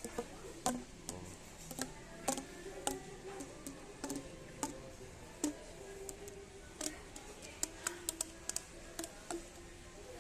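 Irregular light clicks and knocks as parts of a top-loading washing machine are handled, over faint background music.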